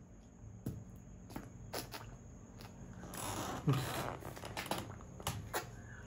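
Faint gulping and swallowing clicks from a boy drinking cola straight from a plastic bottle without pausing for breath. The clicks come at irregular spacing, with a short rush of noise about three seconds in.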